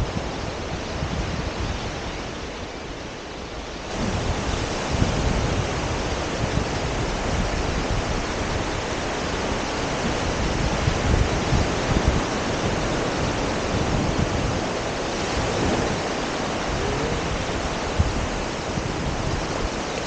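Surf washing onto a sandy beach, mixed with wind buffeting the microphone; the noise gets louder about four seconds in.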